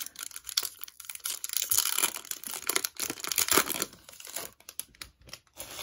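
Foil wrapper of a Topps Finest trading-card pack being torn open and crinkled, with the cards slid out of it. Dense crackling for the first four seconds, then sparser crinkles and clicks.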